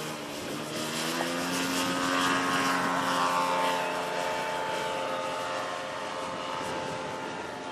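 Propeller-driven radio-controlled scale model of the Strega Mustang air racer taking off. Its motor and propeller rise in pitch as it powers up, are loudest two to three seconds in as it lifts off, then run steadily as it climbs away.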